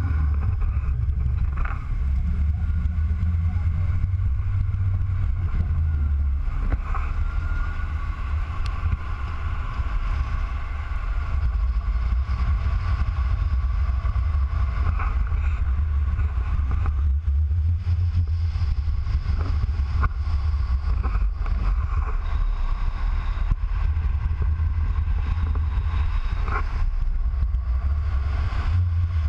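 Heavy wind rumble and road noise on an action camera mounted low on the body of a moving Mini Cooper S, steady throughout, with a fainter steady hum above it.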